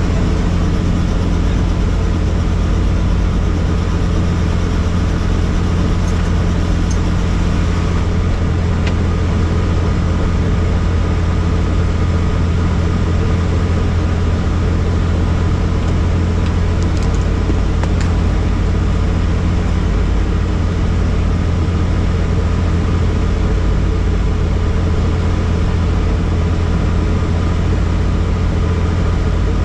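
Helicopter turbine engine and rotor running with a loud, steady drone.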